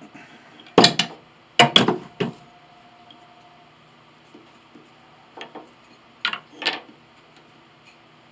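Sharp knocks and clinks of a steel C-clamp and small wooden pieces being handled and set down on a piano frame. There are five in the first two and a half seconds, with a faint ring after them, then four more between about five and seven seconds in.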